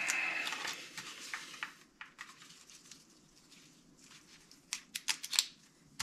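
State Bicycles All-Road helmet being put on and adjusted: a brief scraping rustle as it slides over the head, then scattered small clicks and taps of the chin-strap buckle and straps, a few sharper clicks near the end.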